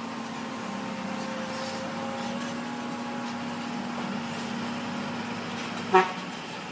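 Heavy diesel machinery running steadily with a constant low hum, and a short horn toot about six seconds in.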